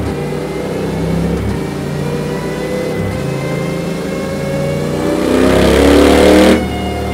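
Honda XL 750 Transalp's 755 cc parallel-twin engine running through a Dominator slip-on exhaust silencer, in gear with the rear wheel driving a dyno. The revs creep up steadily, then about five seconds in the throttle opens and the exhaust note gets louder and climbs quickly. A second and a half later the throttle snaps shut and the note falls back suddenly.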